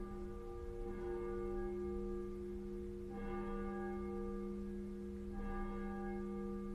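The papklok, the church bell of the Pieterskerk, tolling: three strokes about two seconds apart, its hum ringing on steadily between strokes.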